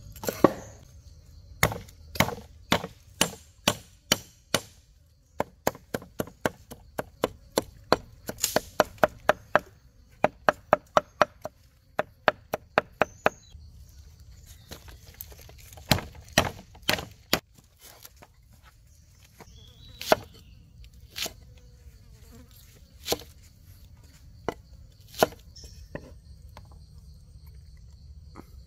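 A knife chopping on a cutting board: runs of sharp strokes, quickest in the first half, then thinning to single chops spaced a few seconds apart. A faint high insect buzz runs underneath.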